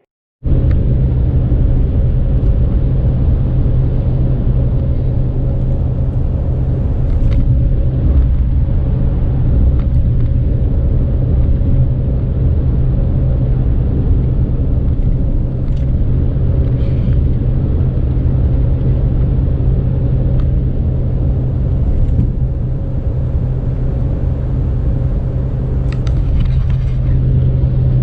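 Steady road and engine rumble inside a truck's cabin while driving, with a constant low hum and a few faint clicks.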